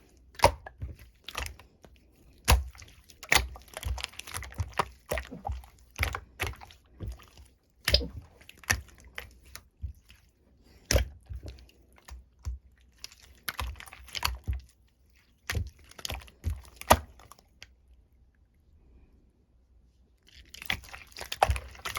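Slime being squished and pressed by hand, giving irregular sharp wet pops and clicks, with a pause of about two seconds near the end.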